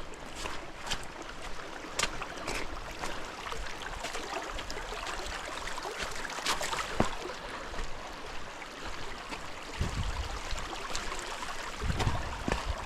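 Steady rush of river water with many short sharp ticks scattered over it, and two brief low rumbles near the end.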